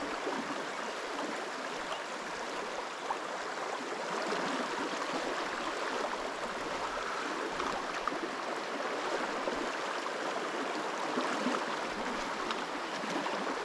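Fast river current rushing over a shallow, stony riffle: a steady, even hiss of water.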